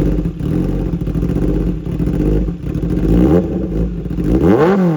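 Kawasaki ZX10R inline-four idling through an SC Project CRT full-system titanium exhaust, freshly started, with one quick throttle blip near the end.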